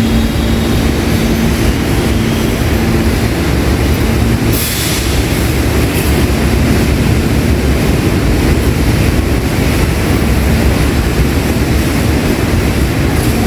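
New York City subway train running on the rails with a steady, loud rumble. A brief sharp hiss comes about four and a half seconds in.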